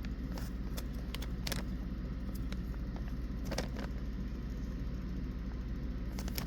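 A steady low hum with a few scattered light clicks and crinkles from small plastic kit parts and bags being handled.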